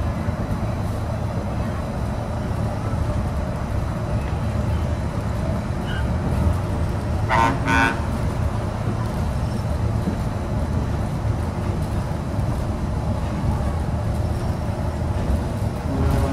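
Steady low running rumble of the Disneyland Monorail Mark VII, heard from inside the cabin. About seven seconds in come two short, quick toots.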